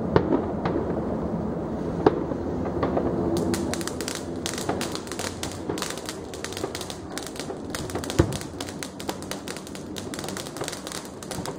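Fireworks: a few separate bangs, then from about three and a half seconds in a long, fast run of firecracker pops crackling almost without a break until just before the end.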